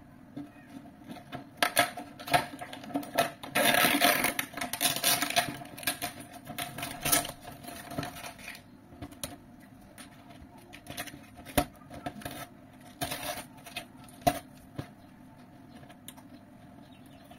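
Hands scraping, rubbing and tapping at the centre of a 15-inch P Audio loudspeaker's cone as its burnt voice coil is worked loose for removal. The sound is a scratchy rustle with scattered sharp clicks, busiest a few seconds in and thinning to occasional clicks later.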